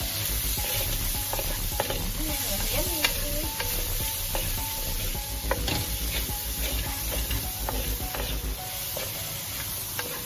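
Turmeric-coated chicken pieces, long beans and onions sizzling in a stainless steel frying pan as a wooden spatula stirs and scrapes them, with scattered clicks and scrapes of the spatula against the pan.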